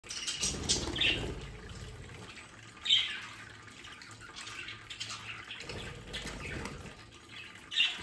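Budgerigars chirping and squawking, with sharp calls about a second in, at three seconds and just before the end, over the steady trickle of a small pet drinking fountain.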